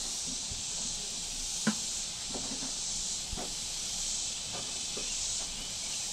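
Steady high-pitched hiss of a summer insect chorus, swelling slightly now and then. Over it come a few soft knocks and taps of a knife on a plastic table as small fish are cut up; the sharpest comes under two seconds in.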